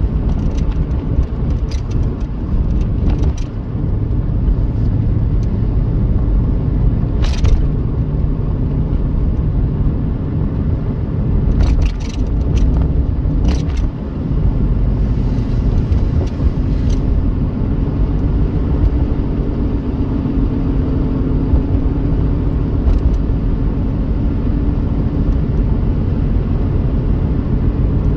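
Car driving along a two-lane road, heard from inside the cabin: a steady low rumble of tyres and engine, with a few short sharp clicks or knocks scattered through it.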